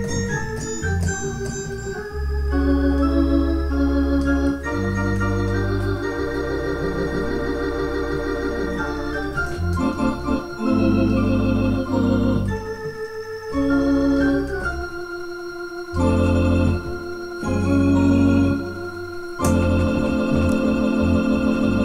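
Portable electronic keyboard played with an organ voice: sustained, wavering chords over held bass notes, changing every second or two.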